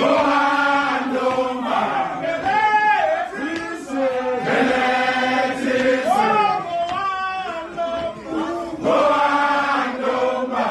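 Group of men chanting a Zulu song in unison, the voices holding long notes with sliding calls between them.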